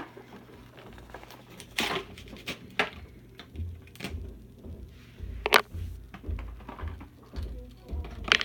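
A toy monster truck's plastic-and-cardboard blister pack being handled and torn open: scattered sharp clicks and crackles of plastic, with dull thumps of handling.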